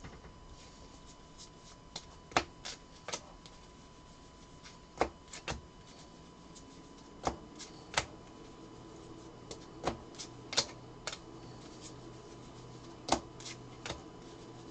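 Cardboard trading cards, Panini Contenders football cards, being peeled off a stack and snapped down one by one on a tabletop: sharp, irregular clicks and snaps, roughly one a second.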